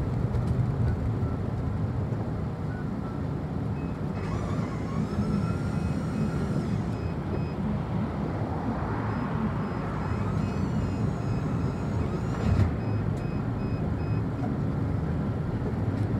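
City bus running along the street, heard from inside, with a steady low engine and road rumble. A faint rapid high beeping sounds twice for a few seconds, and there is a short knock about three quarters of the way through.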